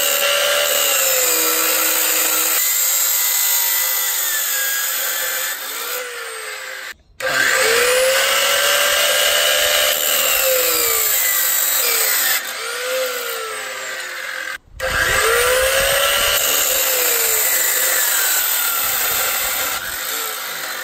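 Cheap Harbor Freight chop saw cutting 1-inch square steel tube. There are three separate cuts, each a loud motor whine that sags in pitch as the blade bites into the steel. The cuts are separated by two sudden breaks.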